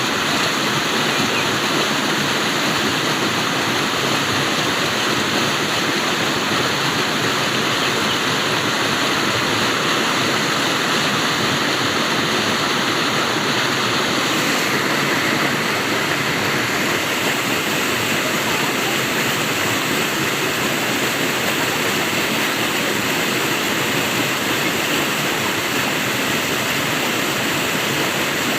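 Flowing water, a steady continuous rush like a stream or small waterfall.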